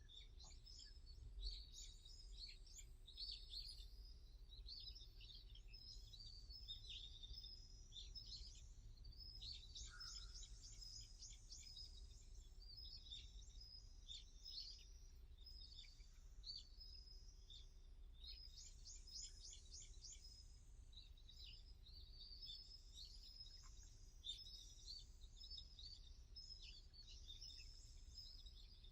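Several small birds chirping and singing, overlapping, faint, with quick runs of falling notes again and again, over a steady low outdoor rumble.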